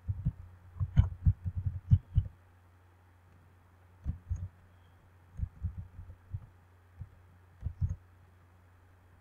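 Computer keyboard being typed on, each keystroke a dull thud: a quick run of strokes over the first two seconds, then after a pause a few short groups of keystrokes, over a faint low hum.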